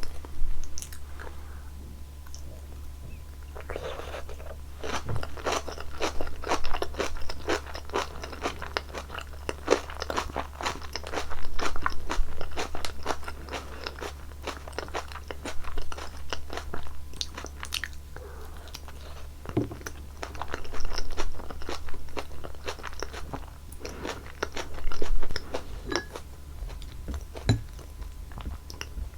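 Close-miked chewing and biting of roasted pumpkin sweet potato, with quick clicks and crunches in spells and short pauses between. A steady low hum runs underneath.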